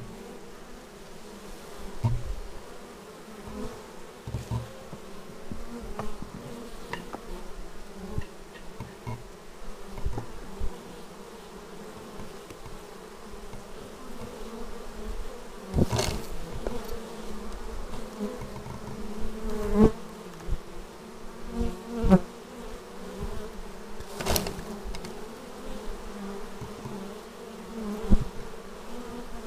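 Many honeybees buzzing at a hive entrance, a steady hum of bees arriving and flying close by. A few brief sharp taps stand out about halfway through and again a little later.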